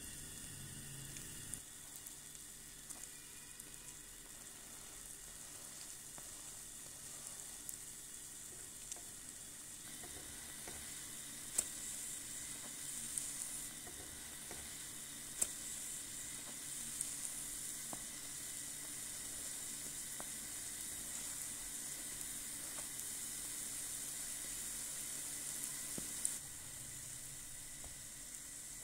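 Hotteok (Korean filled yeast pancakes) sizzling as they fry in shallow oil in a nonstick pan: a steady hiss that grows a little louder about ten seconds in, with a few sharp clicks scattered through it.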